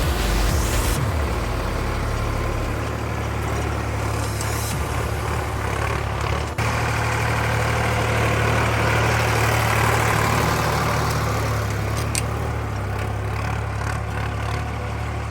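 Sonalika DI 745 III tractor's three-cylinder diesel engine running steadily while pulling a cultivator through dry sandy soil.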